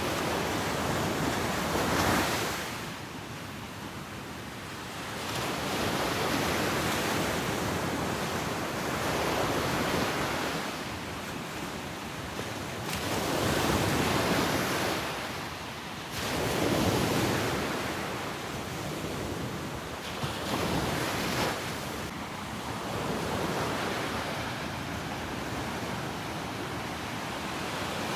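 Ocean surf breaking on a beach, the wash swelling and falling back every few seconds as each wave comes in.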